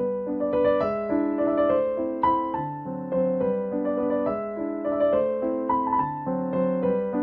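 Background piano music: a melody of separate notes over lower notes, a few notes a second.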